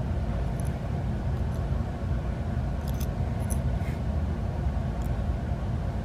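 A steady low rumble of background noise, with a few faint light clicks of metal tweezers picking wound-up hair from a Roomba extractor roller's axle end.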